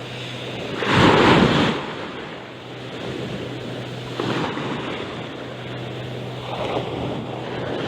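Sea waves washing in against the shore in surges, the loudest about a second in and two smaller ones later, with wind on the microphone and a steady low hum underneath.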